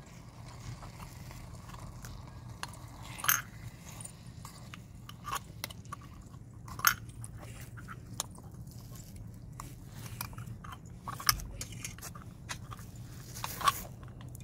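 A tiny steel spatula scraping and tapping against a miniature steel pan as chicken pieces are stirred, in scattered short clicks and scrapes with a few sharper clinks; near the end a small steel lid clinks onto the pan.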